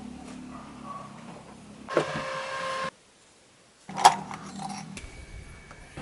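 Leather-working shop machinery: a small electric motor hums, then a louder whirr with a steady whine runs briefly and cuts off. After about a second of quiet comes a sharp knock, and the motor hum resumes.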